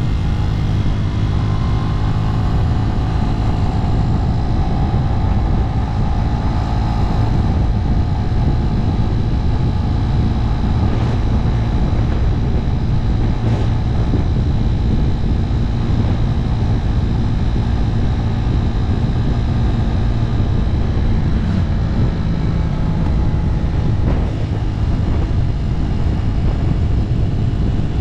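Motorcycle engine running steadily at road speed, with wind rushing over the camera's microphone.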